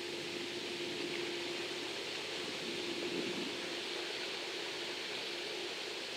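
Bascule bridge's drive machinery running with a steady hum as the bridge leaf rises, under a steady hiss.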